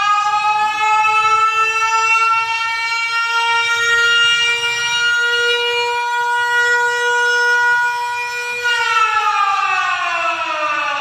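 A siren held at a steady pitch, then winding down in pitch about three-quarters of the way in. It is the siren sounded to mark the moment of the proclamation of Indonesian independence.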